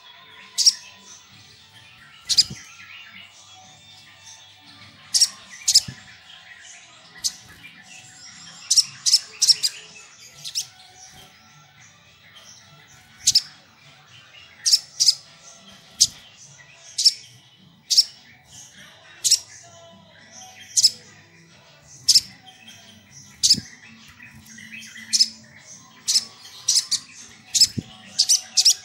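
Sogok ontong (sogon) calling: short, sharp, high chirps, some single and some in quick runs of two or three, repeated every second or so.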